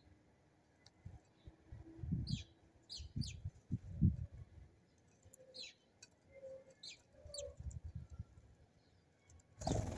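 House sparrows chirping: short, sharp, falling chirps in scattered ones and pairs, over dull low thumps. A sudden loud burst of noise comes near the end.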